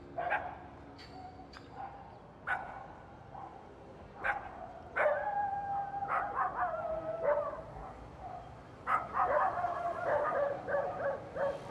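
Dogs barking in short single barks every second or two, then a long whining call that steps down in pitch about five seconds in, and a quick run of yelping barks near the end.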